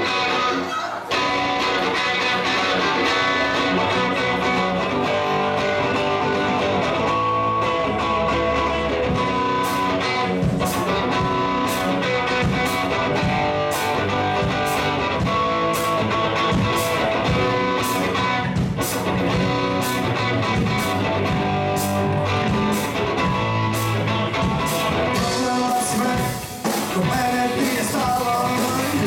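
Live rock band playing a song led by electric guitar; steady, sharp drum and cymbal hits come in about ten seconds in.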